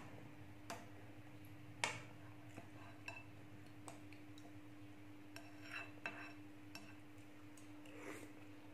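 Faint clinks and scrapes of a metal spoon against a glass bowl as it stirs and scoops cucumber pieces in a sweet milky liquid. The loudest clink comes about two seconds in, with a few more around six seconds, and there is a soft eating sound near the end. A steady low hum runs underneath.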